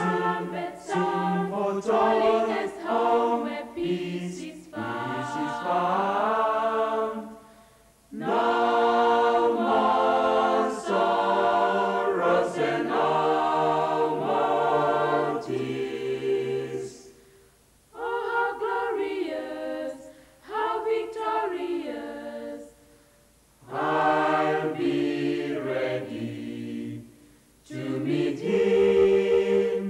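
Unaccompanied choir of men and women singing a gospel hymn in harmony, phrase by phrase, with short breaks between phrases.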